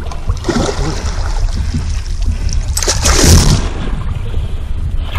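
Steady low wind rumble on the microphone, with a brief loud splash about three seconds in as the hooked giant snakehead thrashes at the surface beside the boat.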